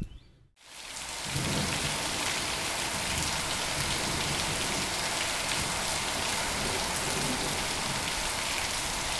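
Heavy, steady rain pouring down, fading in about a second in after a brief gap and then holding at an even level.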